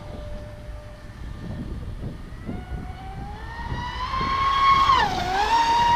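Traxxas Spartan RC speedboat's brushless electric motor and drive whining as the throttle is opened, rising in pitch and getting loud. The pitch drops briefly about five seconds in, then climbs straight back.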